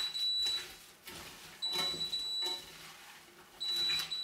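An electronic beeper sounds a single high tone about a second long, once every two seconds, three times. Under it is the faint squelch of ground beef, egg white and chopped vegetables being kneaded together by hand.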